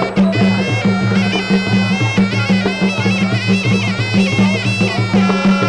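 Traditional Khmer boxing-ring music: a sralai oboe playing a continuous, ornamented reedy melody over drums.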